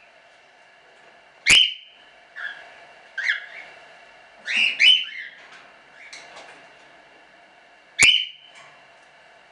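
Cockatiels giving short, sharp chirping calls, about seven in all. The loudest come about one and a half seconds in and near the end, with quicker, softer ones in between, including a close pair around the middle. A faint steady hum sits underneath.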